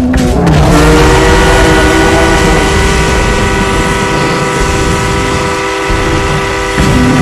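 Train whistle sounding one long chord of several steady notes, starting about half a second in and cutting off near the end, over a low rumble.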